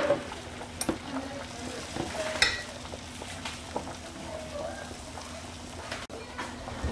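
Beaten egg with chopped chives sizzling in a hot, oiled square stainless-steel egg-roll pan: a steady frying hiss, with a couple of short knocks about one and two and a half seconds in.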